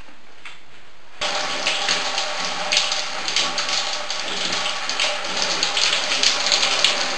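Overhead shower running, water spraying and splashing onto a person and a tiled floor, starting abruptly about a second in.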